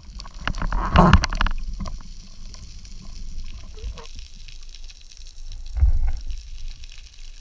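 Water sloshing and bubbling around an underwater camera housing, with a loud crackling rush of bubbles about a second in and a low thump about six seconds in.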